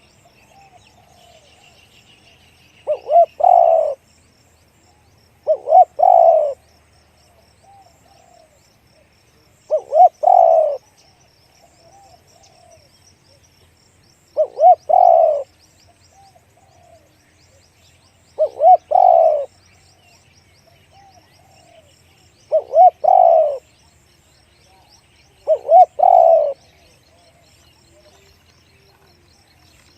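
Spotted dove cooing in repeated phrases, about one every four seconds (seven in all), each a quick pair of short notes running into a longer coo. Faint chirping of small birds carries on behind.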